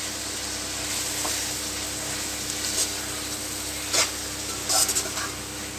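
Thin slices of beef and spice paste sizzling in hot oil in an aluminium karahi as a metal spoon stirs them. A few sharp clicks and scrapes of the spoon on the pan come about four and five seconds in.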